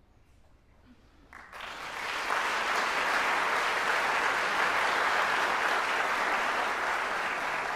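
Audience applause. It breaks out about a second and a half in after a brief hush, builds quickly, then holds steady.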